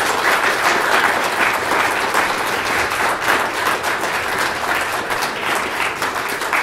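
Audience applauding, many people clapping at once in a steady, dense patter.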